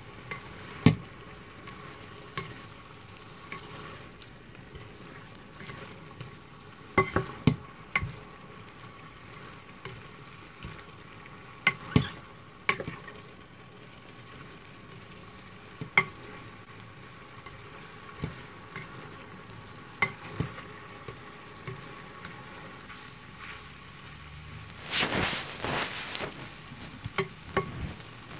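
Rice noodles and vegetables sizzling in a stainless steel pan while being stir-fried and tossed with tongs, the tongs clicking against the pan every few seconds. A louder stretch of sizzling and scraping comes about 25 seconds in.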